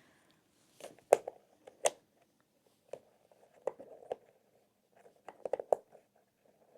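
Wooden puzzle-box parts being handled and fitted together: light clicks and knocks at irregular intervals, with a quick cluster of them about five seconds in.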